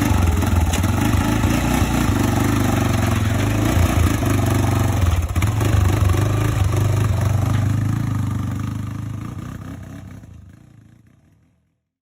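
Freshly rebuilt Honda TRX400 ATV's single-cylinder four-stroke engine running hard, then fading away over a few seconds near the end as the quad moves off.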